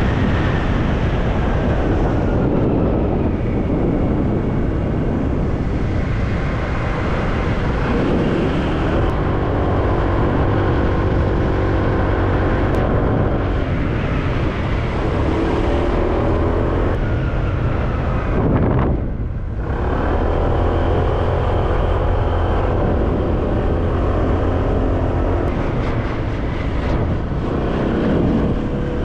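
A vehicle engine running with a heavy, steady rumble, its pitch rising and falling as it speeds up and slows down, with a brief dip about two-thirds of the way through.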